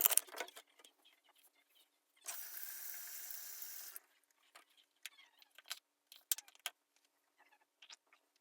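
Scattered clicks and rattles of objects being handled, louder at the start, with a steady hiss lasting under two seconds a little before the middle.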